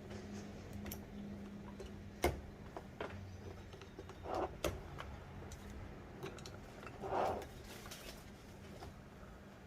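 Faint handling sounds from working on the player piano stack: a few sharp light clicks and knocks and two brief rubbing or squeaking sounds, over a low steady hum.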